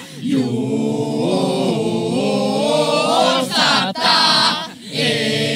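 A group of men and women singing a chant together in long held notes, with short breaths between phrases.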